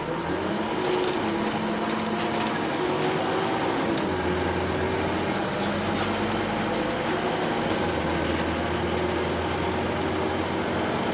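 Scania OmniCity double-decker bus's diesel engine and drivetrain running under way, heard from inside the lower deck. The engine note rises early on and shifts again later as the bus drives, with light clicking rattles from the interior fittings.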